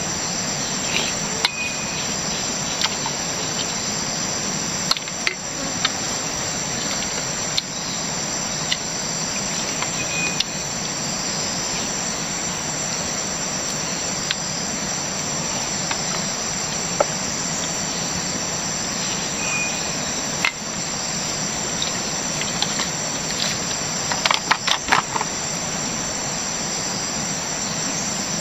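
Steady, high-pitched insect chorus of the tropical forest, with scattered light taps and scrapes of a wooden spoon in a metal bowl. About 24 seconds in there is a quick cluster of knocks.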